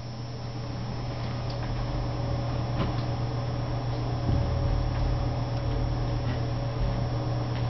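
Steady low hum, with a few faint taps and a soft thump about four seconds in as corgi puppies scuffle on carpet and bump a mirrored closet door.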